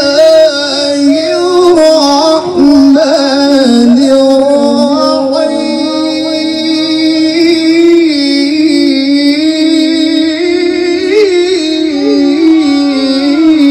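A male qari's voice in melodic Quran recitation, drawing out long, ornamented notes in one unbroken phrase.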